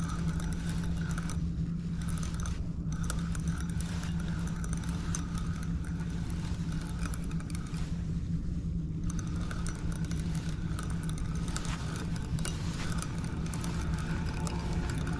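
A steady low mechanical hum over a bed of low rumble, with light scattered clicks and rattles.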